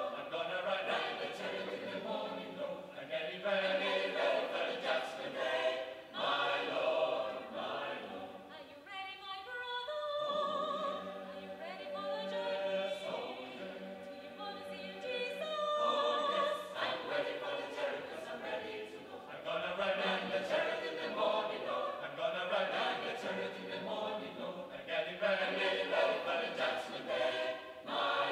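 Mixed choir singing a spiritual a cappella. Between about 9 and 16 seconds in, the sound thins to fewer voices, then the full choir comes back in.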